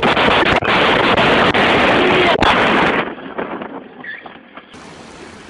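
Loud, steady rushing of wind over the microphone of a camera moving along with a scooter, with a few brief dropouts. It cuts off abruptly about three seconds in, leaving faint background noise.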